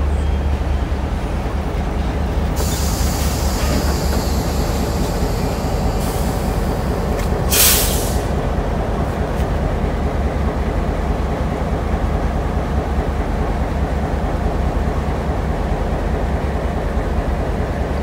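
EMD G12 diesel-electric locomotive rumbling past at crawling speed. High wheel squeal comes in for a few seconds early on, and a short loud hiss of air bursts out about seven and a half seconds in.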